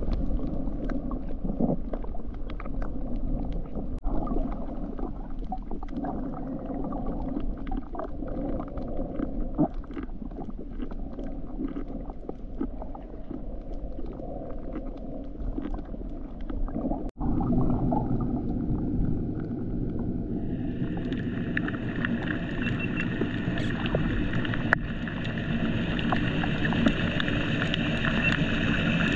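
Underwater reef sound picked up through a camera housing: a low rumble of water with many scattered sharp clicks and crackles. After a brief drop-out about two-thirds of the way through, a louder, brighter rushing noise takes over.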